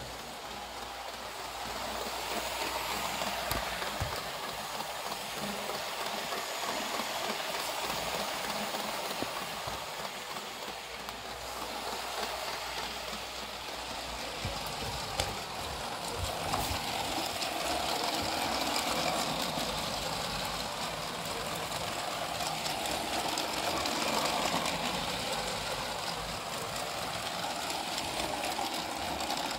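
Motorised LEGO train running around its plastic track: a steady whir of the small electric motor and running gear, growing louder and softer as it goes round.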